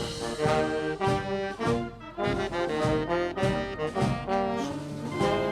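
Music played on brass instruments, several held notes sounding together and changing about every half second.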